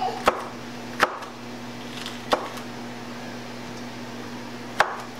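Kitchen knife chopping jalapeño peppers on a wooden cutting board: a few sharp knocks of the blade on the board, about a second apart, then a longer pause before one more near the end.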